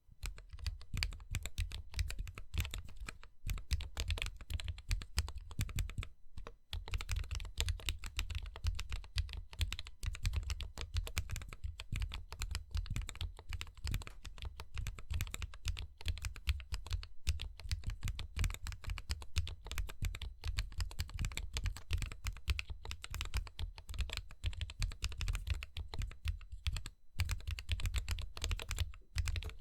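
Steady fast typing on a custom 46-key mechanical keyboard with lubed Gateron Ink Black linear switches, a brass plate, DSA keycaps and an acrylic case, many keystrokes a second with a few brief pauses.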